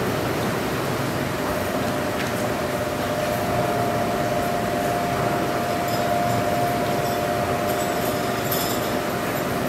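Steady machinery hum with a constant whine and an even rushing noise under it, with a few faint metallic clicks.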